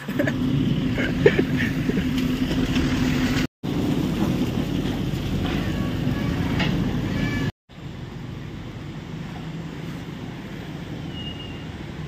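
A motor vehicle's engine running steadily, in two clips broken by an abrupt cut. After a second cut, a quieter steady rushing noise of the swollen, flood-brown river.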